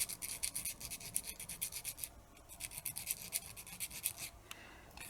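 Quick scratchy scrubbing strokes, several a second, as the rusty, grimy inside of a small DC cassette-deck motor is cleaned off. The rust on the laminations made the motor jam. The strokes pause briefly about two seconds in and again near the end.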